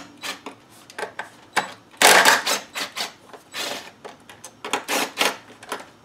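Cordless battery-powered driver backing out two small bolts near an engine's fuel line: short bursts of rapid mechanical clatter with clicks in between, the loudest burst about two seconds in.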